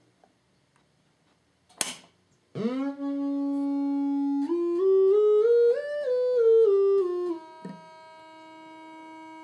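A 1950s EICO audio generator's test tone, played through the PolyOCT octave effect in the ToneStack app. A click comes first, then a buzzy tone rich in overtones starts. It holds its pitch, climbs in steps to a peak and steps back down as the generator's frequency dial is turned, then falls away to a faint steady tone.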